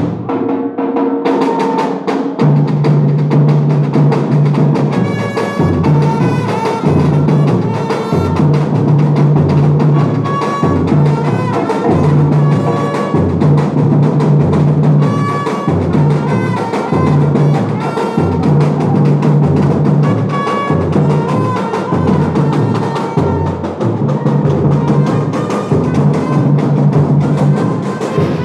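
A samba batucada percussion ensemble playing a steady, dense groove, with deep bass drums marking the beat under layered higher drums and repeating short pitched notes. The full groove comes in a couple of seconds in.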